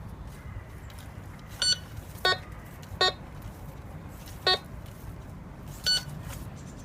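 Maplin Prestige Advanced N87KA metal detector beeping five times, in short beeps of two different pitches, as its coil is swept over a buried 50p coin.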